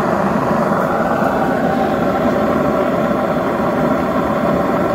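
Commercial carpet-cleaning machine running, its motor giving off a loud, steady whir with a faint steady whine.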